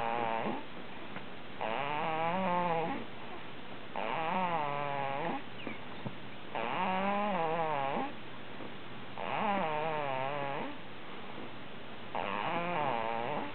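A sleeper snoring in a regular rhythm, with a wavering, buzzing snore about every two and a half seconds. Each snore lasts about a second and a half, and there are five of them after the tail of one at the start.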